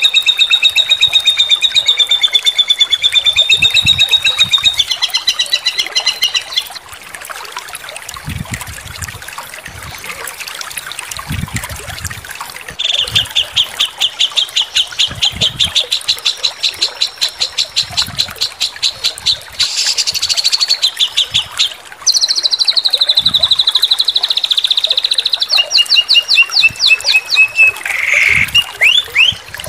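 Songbird masteran (training) recording: a bird singing fast high-pitched trills and rapidly repeated chattering notes in long unbroken phrases. A quieter stretch comes about a quarter of the way in, and a harsher burst follows about two-thirds through.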